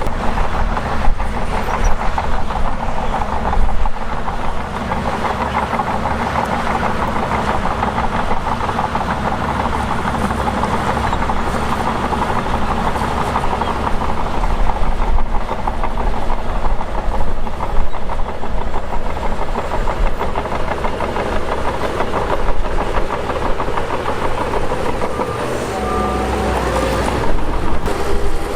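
Shantui DH17 bulldozer at work pushing dirt: its diesel engine runs steadily under load under a dense, fast metallic rattle of the crawler tracks.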